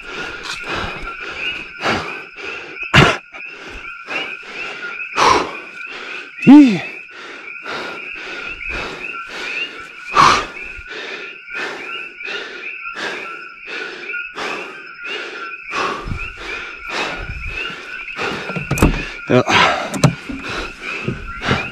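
Steady two-note night chorus of coqui frogs, with repeated knocks and thumps about twice a second as a dead wild boar is handled and hauled to the car. About six and a half seconds in there is one loud grunt that falls in pitch.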